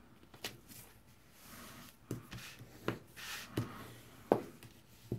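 Cardstock being handled and pressed flat on a table: soft paper rustling with about six sharp little taps spread through it.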